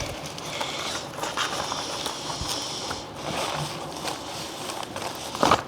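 Rustling and crinkling of packaging material being handled, with a few faint clicks.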